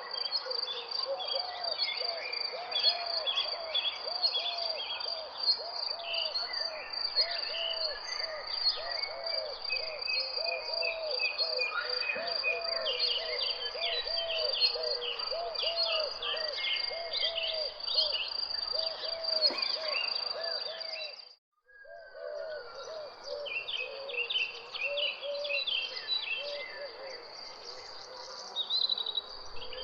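Birds chirping and singing over a steady high insect trill, with a low call repeating about twice a second beneath them. All sound cuts out for a moment about two-thirds of the way through.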